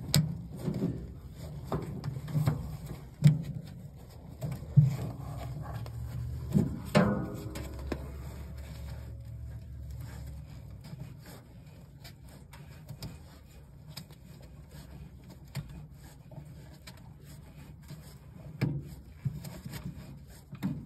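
Knocks and rubbing from a drive belt being worked onto the motor pulley of a Speed Queen top-load washer by hand. The pulley is turned so the belt pulls itself on. Scattered thumps come in the first several seconds and again near the end, with a quieter stretch between.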